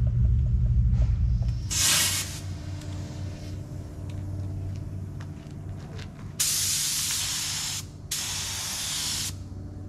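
Black Widow compressed-air paint spray gun being triggered at a test board: a short hiss about two seconds in, then two loud sprays of about a second and a half each with a brief pause between.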